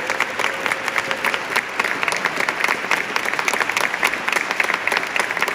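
Audience applauding: dense, steady clapping from a concert hall crowd.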